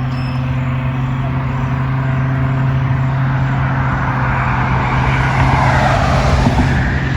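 Steady low motor hum, with a rushing noise that swells and fades again between about four and seven seconds in.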